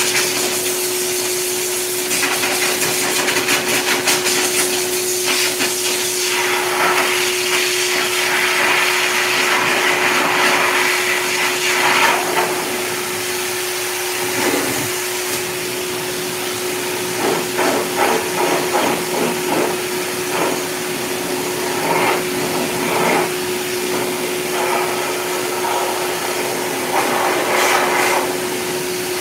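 Heavy-duty K9 high-velocity dog grooming dryer blowing continuously: a steady motor whine under a strong rush of air that swells and dips as the nozzle is moved over the dog's thick coat.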